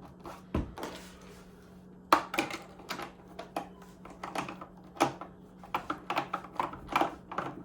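Loosened Torx screws clicking and rattling in the deep screw wells of a 1984 Macintosh's plastic case as they are worked with the driver. The rapid, irregular clicks, starting about two seconds in, are the sign that the screws are loose. There is a single dull thump about half a second in.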